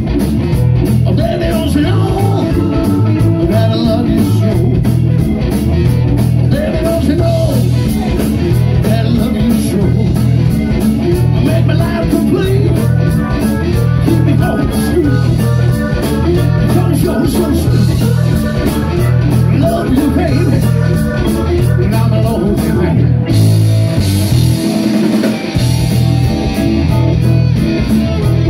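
Live band playing a song on electric guitar, bass guitar, electric keyboard, saxophone and drums, with a steady pulsing bass line. The bass drops out briefly a little before the end.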